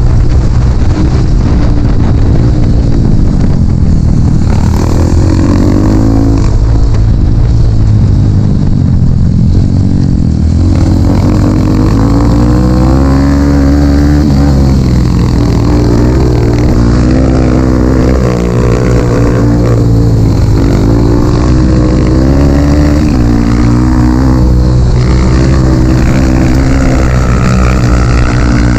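Dirt bike engine revving up and down again and again as the throttle is opened and closed along the trail, loud and close.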